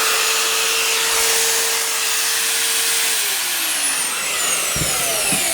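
Parkside electric wood router running free at its top speed setting with a steady high whine. About three seconds in it is shut off, and the whine falls in pitch and fades as the motor coasts down. There are a couple of light knocks near the end.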